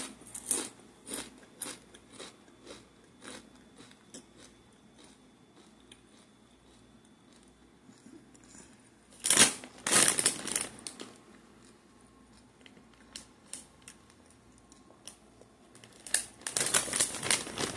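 Nacho cheese tortilla chips crunching as they are bitten and chewed: runs of short, sharp crunches, with louder bursts about halfway through and near the end.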